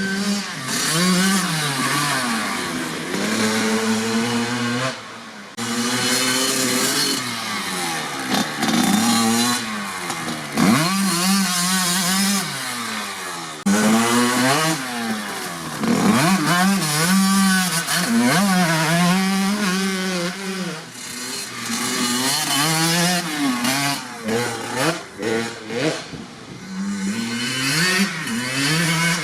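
1997 Kawasaki KX80 two-stroke dirt bike engine with a DEP silencer, revving up and down over and over, its pitch climbing and falling again and again, with a few sudden drops in level.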